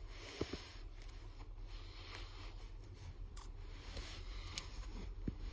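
Faint handling noise from a binder of plastic card-sleeve pages: soft rustling with a few light clicks.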